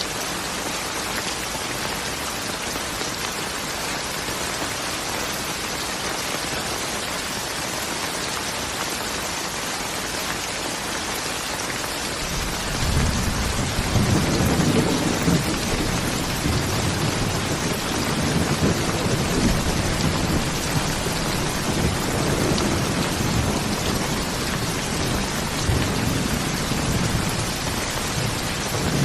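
Steady rain falling, with thunder rolling in about halfway through and rumbling on low and long.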